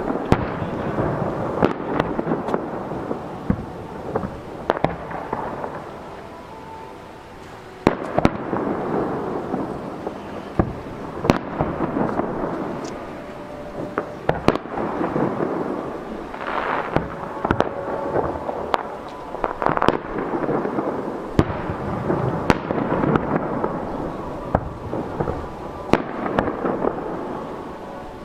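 Aerial firework shells bursting: a run of sharp booms at irregular intervals, with rumbling echoes and crackle between them. The bangs thin out for a couple of seconds about six seconds in, then a loud boom picks them up again.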